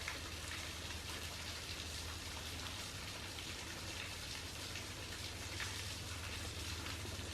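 Small waterfall on a creek: a steady splash and patter of falling water.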